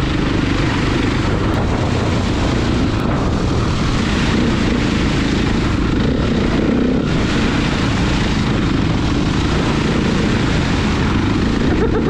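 A single-cylinder four-stroke KTM enduro bike's engine running steadily under throttle as it rides through puddles on a wet trail, with heavy wind rush on the helmet-mounted microphone.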